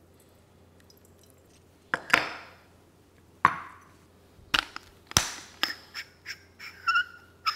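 Hard knocks and clinks of pour-over gear handled on a countertop: a ceramic and glass kettle, dripper and server set down with short ringing knocks, then a quicker run of clicks from a hand coffee grinder's metal parts. It ends with a brief bright metallic ring.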